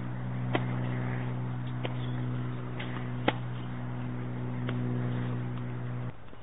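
Tennis rally: tennis balls struck by rackets and bouncing on a hard court as a handful of sharp pops, the loudest about three seconds in. Under them runs a steady low hum that drops away near the end.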